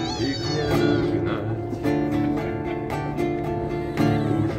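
A man singing in Russian to his own strummed acoustic guitar, with a wavering held note at the start and steady strums under the voice.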